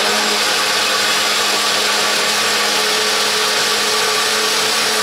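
Ladyship countertop blender running steadily, blending almonds and water into almond milk. It makes an even motor whir with a steady low hum underneath.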